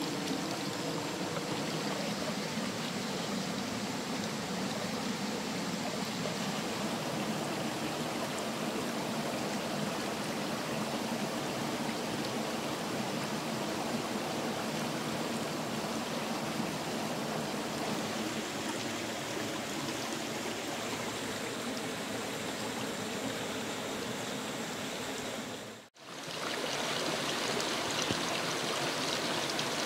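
A small rocky stream running, a steady rushing of water. Near the end it drops out for a moment and comes back brighter and hissier.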